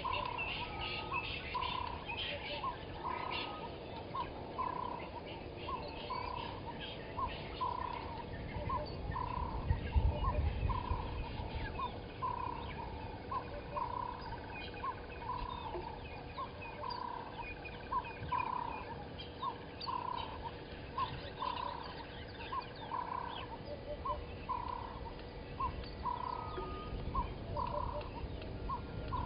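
Birds calling outdoors: one short note repeated steadily about three times every two seconds, with fainter high chirps from other birds over it. A low rumble swells briefly about a third of the way in.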